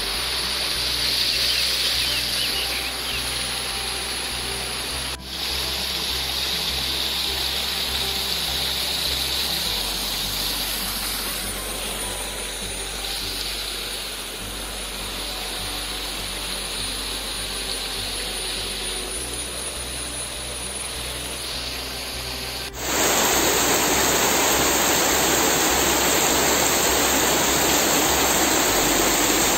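Rain falling on trees and a rain-fed stream running over rocks. About three quarters of the way through, a sudden cut to a much louder, steady heavy monsoon downpour.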